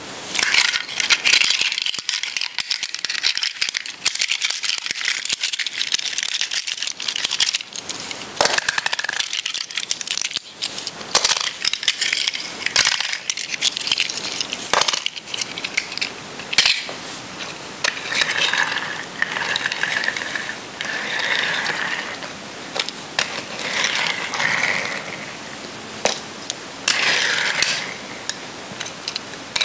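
1970s Matchbox die-cast toy cars rattling against each other and being rolled across a hard floor: a steady clatter of small metal clicks. From about halfway on it comes as a series of separate rolling runs a second or two long.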